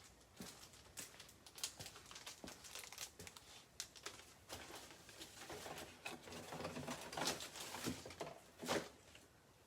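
Plastic wrapping of a trading-card box and packs crinkling and tearing as it is opened by hand: a run of quick crackles, busiest in the second half.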